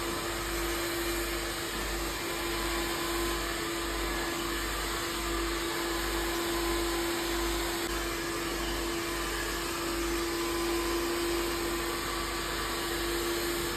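Handheld hair dryer running steadily: a constant motor whine over rushing air.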